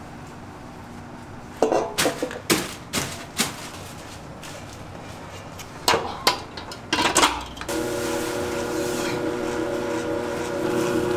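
Metal clanks and knocks of baking pans or kitchen tools being handled, in two quick clusters. About eight seconds in, a steady machine hum with several fixed tones starts and keeps running.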